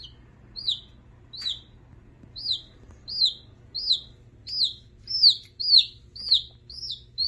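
Baby chick peeping repeatedly: a dozen short high peeps, each rising then falling in pitch, about one every half second, coming a little faster towards the end.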